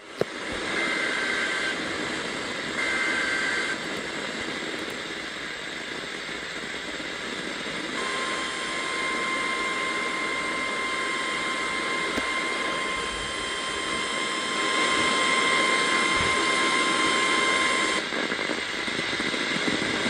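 NOAA Weather Radio broadcast heard through heavy static hiss. It opens with two short bursts of SAME digital header tones, the start of an Emergency Alert System warning. About eight seconds in, the steady 1050 Hz warning alarm tone sounds and holds for about ten seconds before cutting off.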